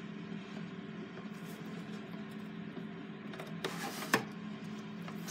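Scissors snipping at a cardboard doll box: a few sharp snips and clicks about two-thirds of the way in, the sharpest just after four seconds, over a steady low hum.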